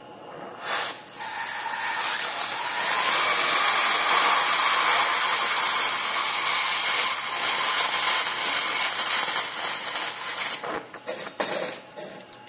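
DHC2000 oxy-acetylene torch with an overcutter attachment cutting through thin-wall chromoly tube: a loud steady hiss of the cut starts about a second in and stops about two seconds before the end, followed by a few short crackles.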